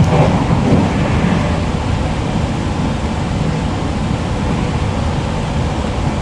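Inside the passenger cabin of an NS ICMm intercity electric multiple unit running along the line: a steady, deep rumble of wheels and running gear on the track.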